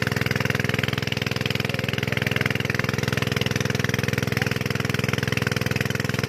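An engine running steadily at constant speed, an even pulsing hum with no change in pace.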